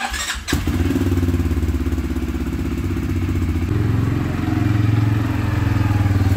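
CFMOTO CFORCE 500 ATV's single-cylinder four-stroke engine running, with a pulsing exhaust note. The engine picks up a little under four seconds in as the quad pulls out and drives past.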